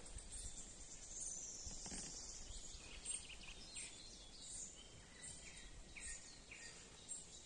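Quiet outdoor ambience with faint, scattered bird chirps and calls, one of them a falling whistle about a second in.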